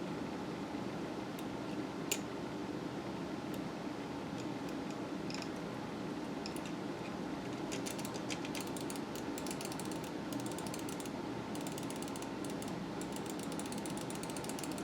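Small plastic clicks from the opened mouse's right-click microswitch being worked while it is wet with isopropyl alcohol to clean out the switch. A few isolated clicks come first, then a rapid, irregular run of clicks from about halfway through until just before the end.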